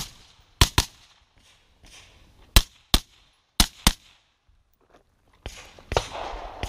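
A string of gunshots on a shooting stage, mostly fired as quick pairs about a third of a second apart, with a few quiet seconds between the pairs.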